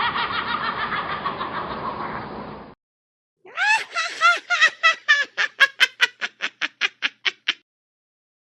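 Two witch-cackle sound effects. The first laugh trails off and ends about a third of the way in. After a short silence, a high-pitched cackle follows as a quick run of 'ha' pulses, about four or five a second, each pulse sliding down in pitch, before stopping abruptly.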